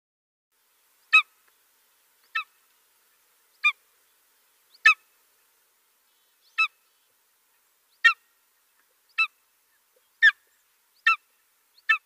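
Eagle calling: a series of about ten short, high calls, roughly one a second, with silence between them.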